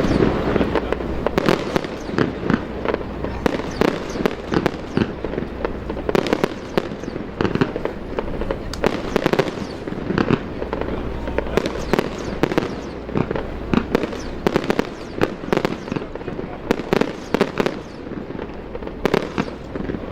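Aerial fireworks display: a dense, continuous run of sharp bangs and crackles from shells bursting, several a second, one after another.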